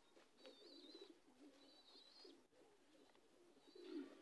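Domestic pigeons cooing faintly, with a slightly louder coo near the end.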